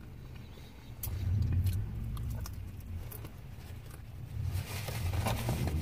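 Low engine rumble of another vehicle running close by, starting about a second in, heard from inside a parked car, with a few small clicks and rustles.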